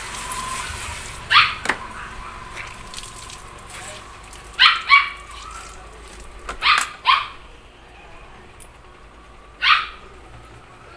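Small dog barking in short high yaps: one bark, then two quick pairs, then a last single bark near the end. A hose spray nozzle hisses briefly at the start.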